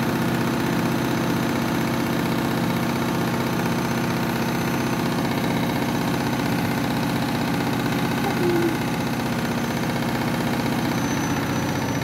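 Front-loading washing machine on its final spin with an overloaded drum, the drum and motor running at a steady speed with an even mechanical hum. The spin holds at about 800 rpm and does not reach the machine's top spin speed.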